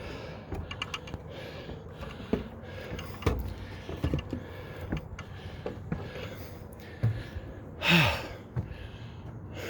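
Heavy, laboured breathing of a man climbing stairs, about one breath a second, with scattered footfalls and knocks on the steps. About eight seconds in comes a louder, voiced exhale that falls in pitch, like a groan.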